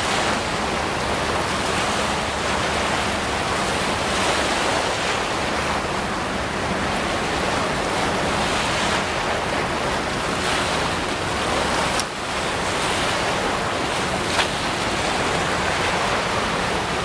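Choppy floodwater washing and breaking against the bank, a steady rush of water with wind buffeting the microphone. A brief knock about fourteen seconds in.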